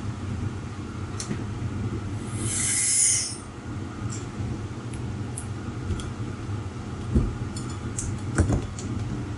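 Air hissing into an evacuated vacuum degassing chamber as its valve is opened to vent it. The hiss comes about two seconds in, grows louder for about a second, then cuts off as the chamber reaches atmosphere. Light clicks and knocks of the chamber's fittings and lid follow over a steady low hum.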